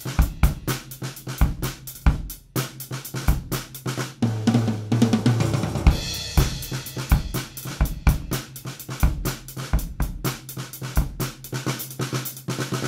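Gretsch Renown drum kit played with sticks: a groove on snare, bass drum and hi-hat with cymbals, several hits a second. About four seconds in there is a fill around the toms.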